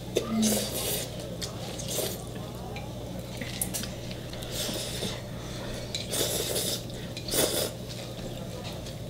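People slurping and chewing noodles, with several short noisy slurps and light clinks of chopsticks on plates, over a steady low hum.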